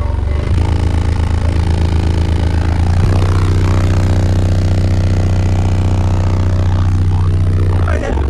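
Semi truck sleeper wall of eight Sundown X 15-inch subwoofers playing very loud deep bass notes. The bass changes pitch about half a second and again about three seconds in.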